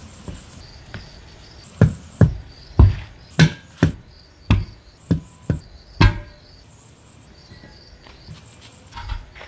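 A run of about ten heavy hammer blows about half a second apart, starting about two seconds in and stopping about six seconds in, a few with a short metallic ring. Crickets chirp steadily behind them.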